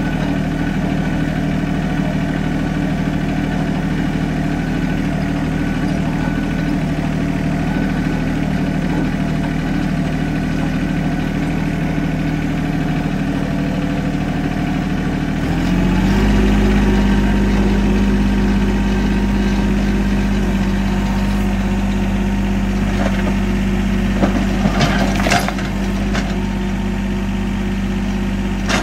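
Compact tractor's diesel engine running steadily under way; about halfway through the engine speed steps up and it runs a little louder. Near the end come a few short cracks and scrapes as the front loader pushes into brush and rock.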